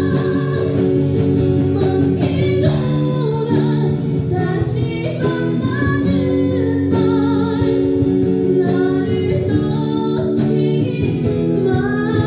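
A woman singing a slow ballad with held, wavering notes over an accompaniment of sustained chords with guitar.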